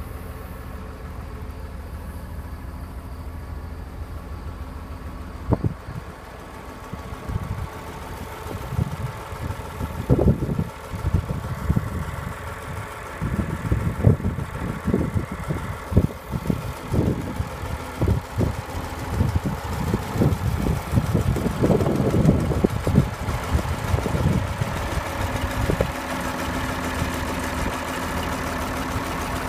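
John Deere 544 wheel loader's diesel engine running at idle. Through the middle there is a string of irregular sharp knocks and clanks, and the sound is louder then before settling back to a steady idle near the end.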